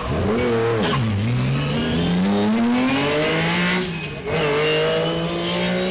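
Lancia Stratos rally car's Ferrari Dino V6 engine revving hard under acceleration. A quick rise and fall in pitch comes at the start, then a long climbing pitch that breaks with a gear change about four seconds in and climbs again.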